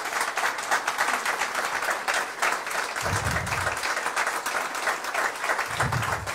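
Audience applauding steadily at a political rally, many hands clapping at once.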